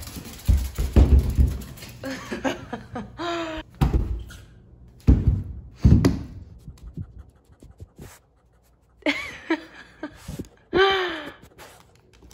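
A small dog's excited greeting: thumps and knocks of bodies and paws on the floor, panting, and a few short, high, falling vocal calls.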